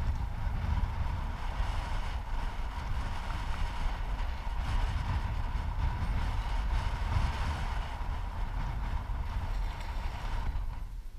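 Wind buffeting the microphone: a steady low rumble, with a faint steady whine above it.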